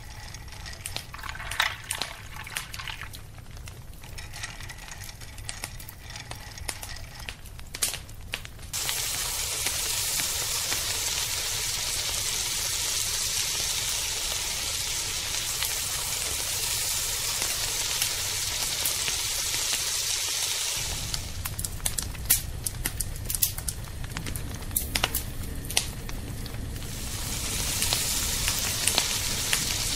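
A thin stream of sunflower oil pouring into a wok. Then, abruptly about nine seconds in, breaded chicken deep-frying in hot oil: a loud, steady sizzle, with many sharp crackles and pops in the later part.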